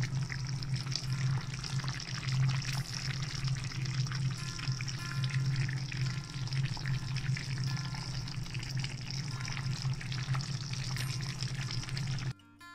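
Fish and bottle gourd curry bubbling and crackling in a frying pan, over a steady low hum. Both cut off suddenly near the end.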